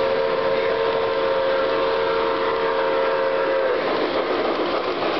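Model steam locomotive's electronic sound system blowing one long steady whistle for about three and a half seconds, over the running noise of the toy train and the hall.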